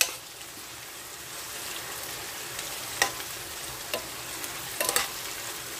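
Sliced onions and tomatoes sizzling in a frying pan, stirred with a metal spoon that clinks against the pan a few times.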